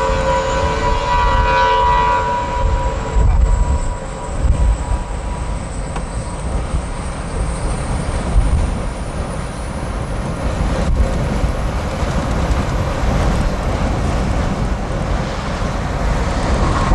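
Steady low road rumble and wind noise from a moving vehicle. A horn holds a steady multi-tone chord for about the first three seconds, then stops.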